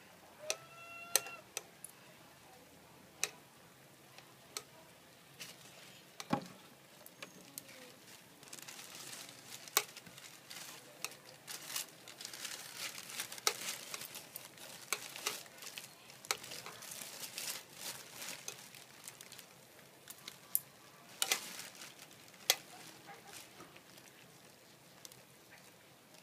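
Beef, egg and onion frying in a pan, with a soft sizzle that swells for a while in the middle and the sharp clicks of metal chopsticks tapping the pan as the meat is stirred.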